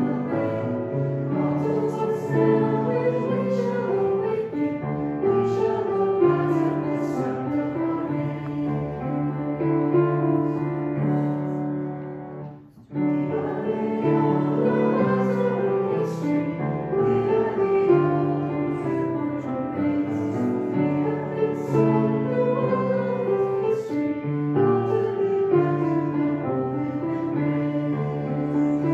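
A hymn sung with piano accompaniment, breaking off briefly about thirteen seconds in before the next verse starts.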